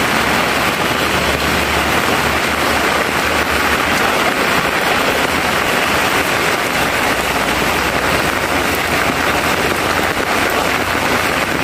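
Heavy rain pouring onto a road and the vegetation beside it, a steady, dense hiss, with a low rumble underneath from a bus and car approaching on the wet road.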